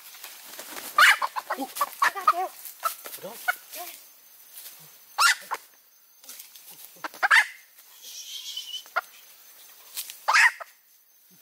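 Chickens clucking and squawking: a quick run of clucks about a second in, then single loud squawks every two to three seconds.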